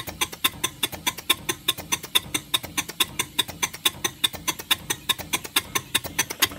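Scale-model Allen American locomotive's 2-inch-bore steam cylinders running on compressed air in forward gear, making a quick, even beat of exhaust chuffs with the clatter of its Stephenson valve gear.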